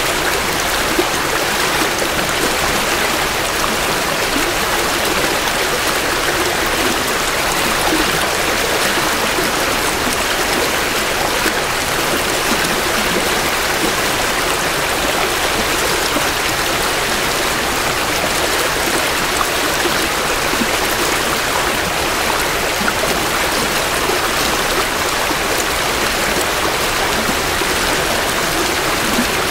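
Creek water flowing and burbling over stones in a steady rush, recorded close to the water's edge.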